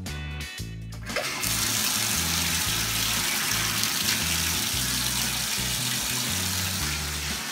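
Bathtub faucet running, a steady stream of water pouring from the spout onto the tub floor by the drain, starting about a second in.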